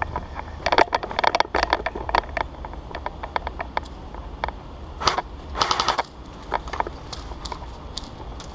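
Airsoft guns firing: a rapid flurry of shots about a second in, scattered single shots after it, and another dense burst about five to six seconds in.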